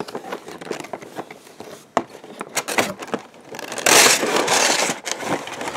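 Packaging being handled: a clear plastic tray scraping and crinkling as it is slid out of a cardboard box, with scattered clicks and knocks. About four seconds in comes a louder scrape lasting about a second as the tray slides free.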